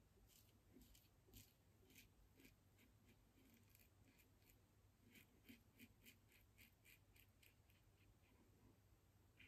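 Double-edge safety razor scraping stubble off a lathered cheek in short, quick strokes, faint and crisp, about two or three a second with a brief lull midway; an against-the-grain pass.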